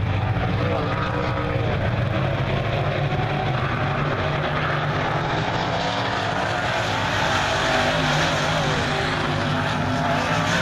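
A pack of dirt-track modified race cars running hard around the oval: a steady, loud drone of many V8 engines at once. Engine pitch sweeps up and down as cars go by in the second half.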